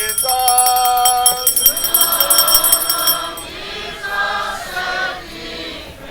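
A single voice sings held notes over a steady, high ringing of altar bells at the elevation of the chalice. The bells stop about three seconds in, and a choir carries on singing more softly.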